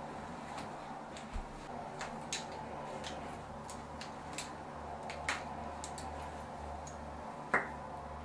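Small scattered clicks and ticks of makeup items being handled and rummaged through in a makeup bag, the sharpest click near the end, over a low steady hum.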